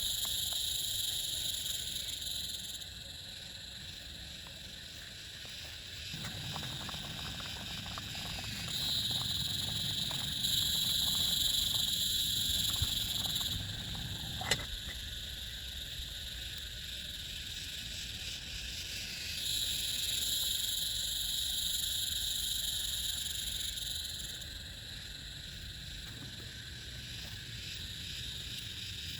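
Steady rain with a shrill animal chorus of frogs or insects that swells and drops out in spells of a few seconds. The low rain noise grows heavier for several seconds in the first half. A single sharp click comes about halfway through.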